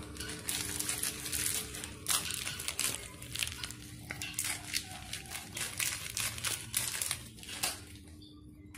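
Irregular crinkly rustling and crackling, a dense run of short crackles that thins out and goes quieter near the end.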